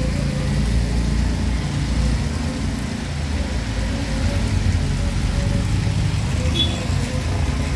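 Small engines of three-wheeled motorcycle taxis running as they drive through a rain-soaked street, over the steady noise of heavy rain.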